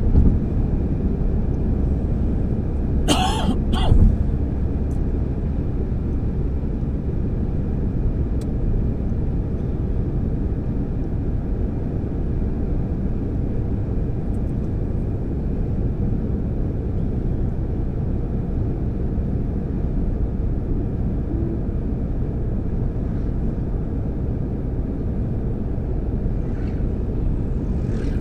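Steady low rumble of a car's tyres and engine at motorway speed, heard from inside the cabin. A brief sharp noise comes twice in quick succession about three to four seconds in.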